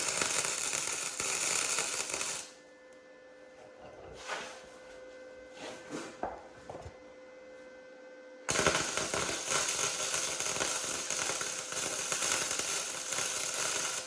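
Flux-core wire-feed welder tack welding a steel truck frame: a steady arc crackle for about two and a half seconds, a quieter gap with a few light clinks, then a second, longer weld from about eight seconds in.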